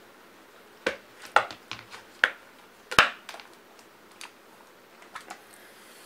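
Snap latches of a hard plastic carry case clicking open and the lid being lifted: a series of sharp clicks and knocks, the sharpest about three seconds in, then lighter clicks as the case is handled.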